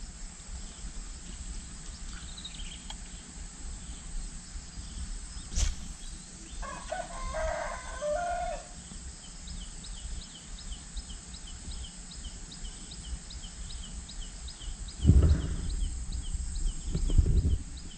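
A rooster crows once, about seven seconds in, for about two seconds, after a single sharp click. Through the second half a steady series of short high chirps repeats two or three times a second, and near the end two loud low rumbling thumps come through.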